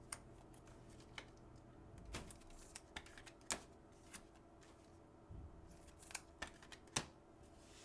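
Faint, irregular clicks and flicks of sports trading cards being handled and sorted, with a few sharper clicks scattered through.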